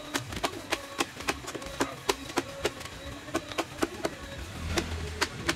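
A short-handled axe blade chopping into a hardwood block, a quick, even run of sharp woody strikes at about four a second.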